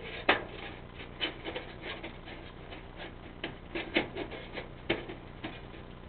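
A clean-out cap being pushed and worked by hand onto a metal chimney flue pipe: irregular metallic clicks and scrapes, with a few sharper knocks about a third of a second in, at about four seconds and just before five seconds.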